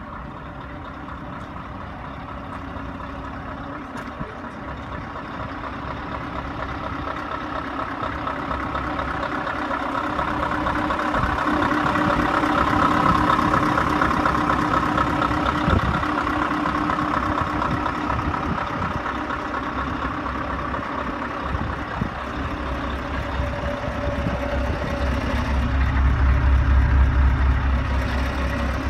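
Heavy truck engines running as trucks move slowly past. The sound grows louder towards the middle, then swells again with a strong deep engine note near the end.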